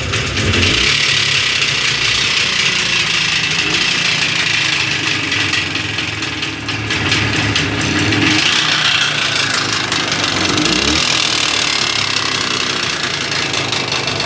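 Jawa 634's two-stroke twin engine running with a strong knock, its revs rising and falling a few times. The mechanic suspects the crankshaft, such as a failed connecting-rod or crank bearing.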